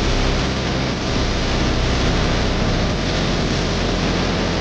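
Car driving on a paved road, heard from inside the cabin: steady tyre and engine noise with a deep rumble.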